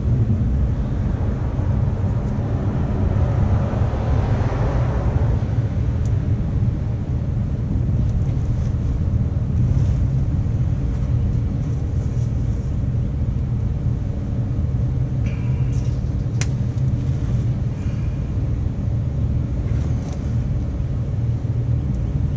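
Steady low rumble of background vehicle noise, with a car passing about four seconds in. A single sharp click comes about sixteen seconds in from hand work on the bus starter's wiring.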